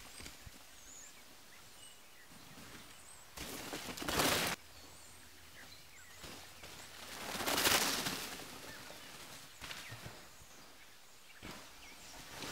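Canyon Sender downhill mountain bike's tyres rolling through dry fallen leaves as the rider passes close, twice: a short burst about four seconds in that cuts off suddenly, and a longer pass that swells and fades around the middle. Faint bird chirps in the quiet between.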